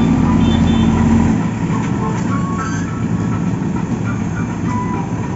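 An engine running with a steady low hum that drops off about a second in and then carries on more quietly.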